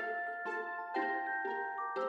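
Background music: a gentle melody of struck, ringing notes, a new note about every half second.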